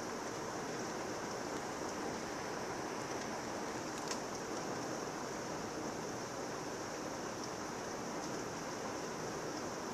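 Thunderstorm rain falling steadily, an even hiss, with a single sharper tick about four seconds in.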